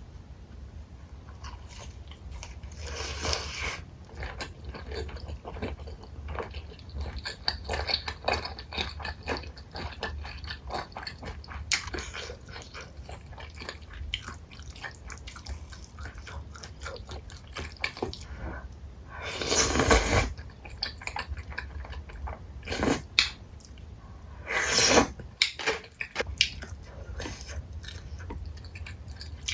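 Close-miked eating of spicy chicken feet in broth: wet chewing with many small clicks of cartilage and bone. Several louder noisy bursts come about 3, 20, 23 and 25 seconds in.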